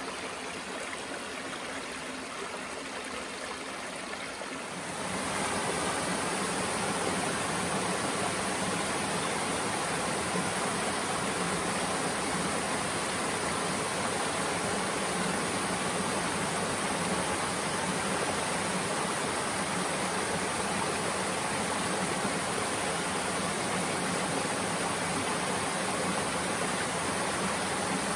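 Shallow creek water rippling over flat rock ledges. About five seconds in it turns louder and fuller, the steady rush of a small tiered waterfall spilling over rock ledges into a pool.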